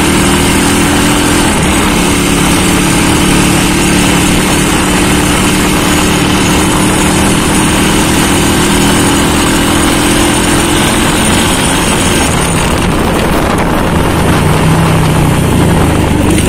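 Small motorcycle engine running steadily under way, with heavy wind rush on the microphone. About twelve seconds in, the engine note fades under the wind, then shifts higher near the end.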